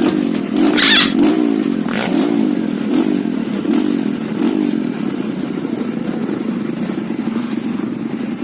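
Trail motorcycle engine running, its pitch rising and falling over and over, with a few clicks and knocks in the first two seconds.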